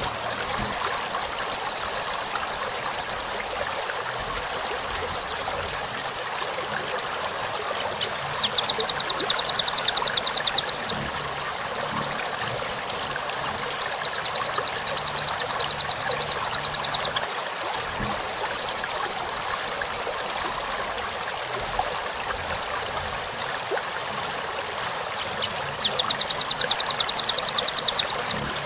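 Velvet-fronted nuthatch (rambatan) calling in fast, high trills of rapid chips, repeated in runs of one to three seconds with short gaps, a couple of runs opening with a falling note. A steady rush of running water lies under it.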